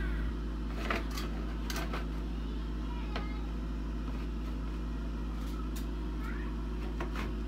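Bathroom exhaust fan motor running with a steady low hum, with a few light clicks and taps as the fan's cover and its mounting springs are fitted back into the housing.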